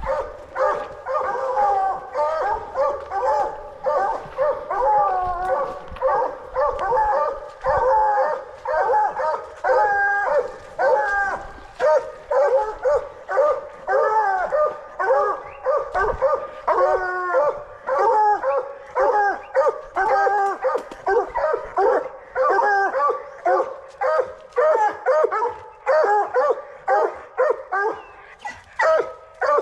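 Coonhounds barking treed: continuous, rapid, pitched bays and barks at a tree that holds a raccoon.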